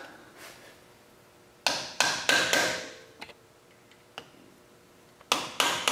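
Hammer tapping a tool held against the lock washer on a Land Cruiser's front wheel-bearing lock nut, bending its tab over onto a flat of the nut. Metal-on-metal blows ring briefly: a cluster of about four blows about a second and a half in, a couple of lighter taps, then a quicker run of blows near the end.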